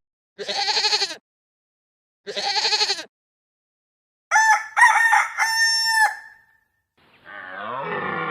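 A rooster crowing once, a pitched cock-a-doodle-doo in several parts about four seconds in, the loudest sound here. Before it come two harsh animal calls, and another animal call starts near the end.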